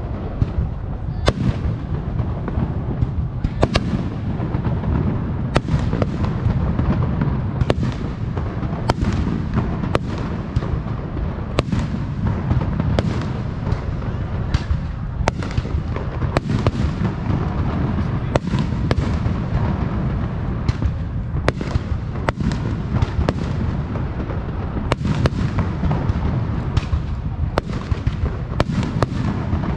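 Aerial fireworks shells bursting in a steady barrage: sharp bangs about once a second over a continuous low rumble of overlapping bursts.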